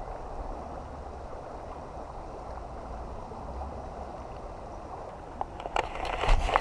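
Steady rushing of flowing creek water with a low rumble under it. Near the end come a few sharp clicks and a louder brief rustle.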